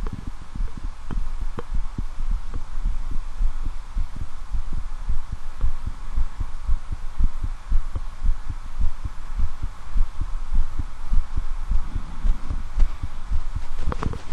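A human heartbeat heard through a stethoscope chest piece: a steady, even run of dull low thumps over a faint steady hum. Near the end there is a brief sharper rustle.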